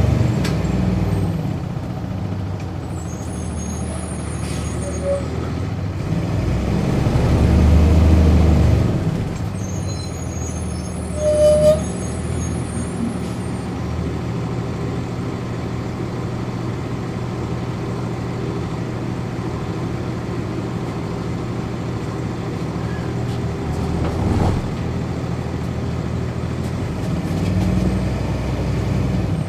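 Interior sound of a 1999 NovaBus RTS transit bus under way: its Cummins ISC inline-six diesel and ZF automatic transmission running, pulling harder for a few seconds before settling to a steady drone. A brief high squeak cuts in about twelve seconds in.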